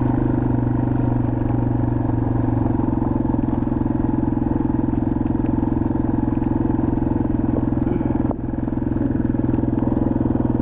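Yamaha TW200's single-cylinder four-stroke engine running steadily as the motorcycle rides along, with a brief dip in sound a little past the two-thirds mark.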